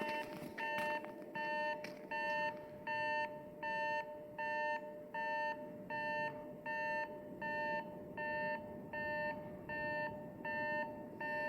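Japanese railway level-crossing warning bell ringing, an electronic two-tone 'kan-kan' repeating steadily about one and a half times a second. A faint steady tone hums underneath.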